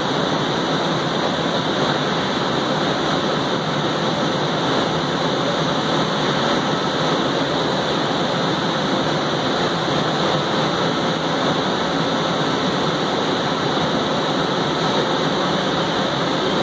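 2000 Miyano LM-21 four-spindle CNC turning center running with its chucks spinning: a steady, even machine noise without breaks.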